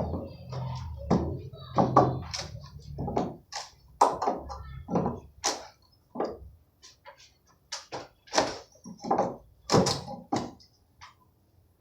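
Irregular series of sharp knocks and thuds as wooden concrete form boards are struck and worked loose from a cured slab.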